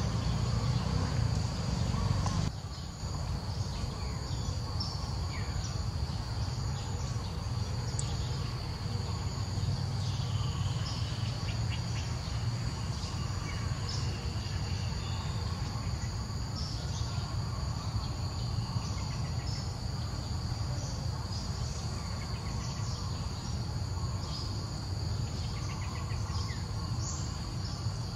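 Steady high-pitched insect chorus, crickets or cicadas, running without a break over a low rumble. The rumble is louder for the first two and a half seconds, then drops. A few faint short chirps come and go.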